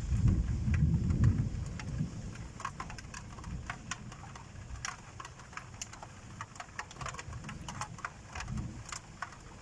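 Thunder rumbling low over the first couple of seconds and dying away, with rain and sharp drops ticking irregularly on a hard surface throughout. A short, low rumble comes again near the end.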